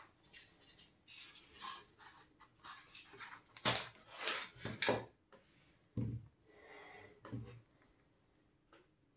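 Foam mold being prised and broken away by hand from a small cast-concrete Jersey barrier: a string of short, irregular rubbing and scraping noises of foam on foam and on concrete, with a duller knock about six seconds in.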